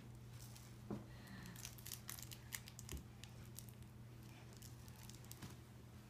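Faint scattered rustling and a few soft taps as a baby crawls down carpeted stairs, over a low steady hum.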